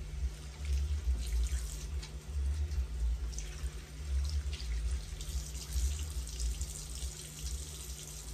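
Bathroom sink tap running steadily, its stream splashing through curly weave hair extensions and into the basin as they are rinsed in cool water.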